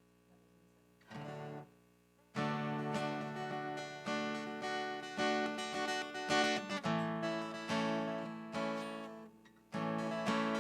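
Acoustic guitar strumming chords: a single short chord about a second in, then steady strummed chords from about two seconds in, with a brief break shortly before the end.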